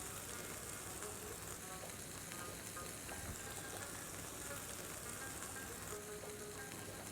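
Chicken pieces frying in garlic and oil in a pan: a steady sizzle.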